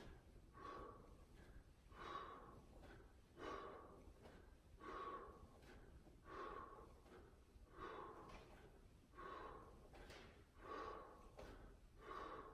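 A man's faint, rhythmic breathing during a light warm-up, about one breath out every second and a half, in time with repeated overhead arm swings.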